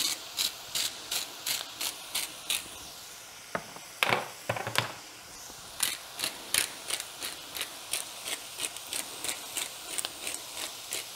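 A hand-twisted spice grinder seasoning a pan of vegetables with salt and pepper, ratcheting about three clicks a second. It runs in two spells with a louder knock and rattle between them about four seconds in.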